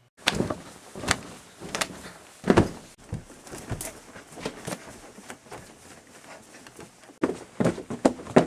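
A person thrashing about on a bed and then the floor: an irregular run of thumps and knocks over rustling, with the strongest thumps in the first few seconds and a quicker cluster near the end.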